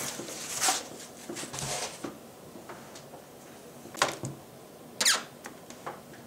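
Handling noises as a laptop is being pried open: a few short clicks and scrapes of a plastic pry pick against the laptop's case, with the laptop shifting on the table. The sharpest clicks come about four and five seconds in.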